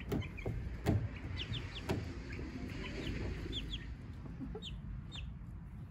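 Chicks peeping in short, high, falling chirps, often two at a time, with two sharp knocks about one and two seconds in.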